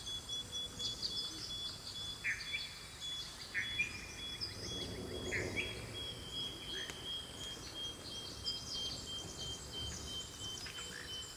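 Birds chirping and calling in many short, separate calls, over a thin, steady, high-pitched insect trill.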